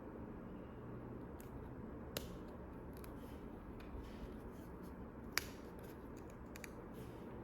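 Scissors snipping, with scattered small clicks and two sharper clicks, one about two seconds in and one about five seconds in, over a steady low hum.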